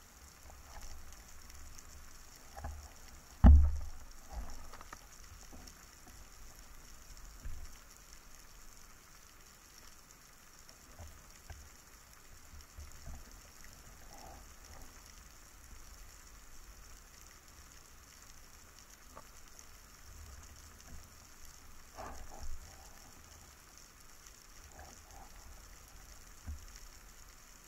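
Underwater ambience picked up through a camera housing on a breath-hold dive: a steady faint hiss, broken by a few dull knocks, the loudest about three and a half seconds in and a smaller one about twenty-two seconds in.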